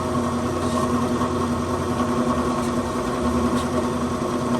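Ammco 4000 brake lathe running under power, its electric motor and gear drive giving a steady hum as the feed travels outward. A few faint ticks sound over the hum.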